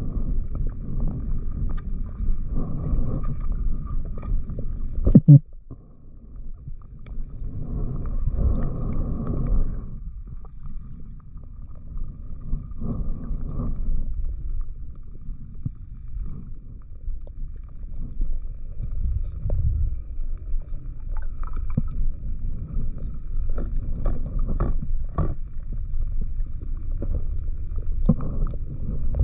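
Muffled underwater sound of water moving against the camera housing as the diver swims, a low rumbling and gurgling, with one sharp knock about five seconds in and a few lighter clicks later.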